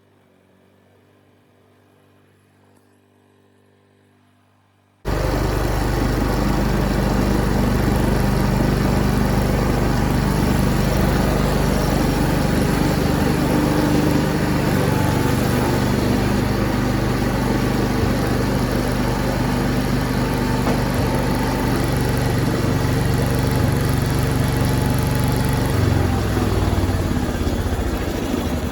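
Faint hum for about five seconds, then a sudden jump to the Allis-Chalmers tractor's Kohler engine running loud and steady as the tractor is driven, freshly fitted with a new head gasket.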